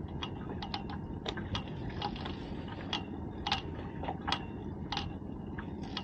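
Fishing reel clicking irregularly as a fish is reeled in from the boat, a dozen or so sharp ticks, some ringing briefly, over a steady low rumble.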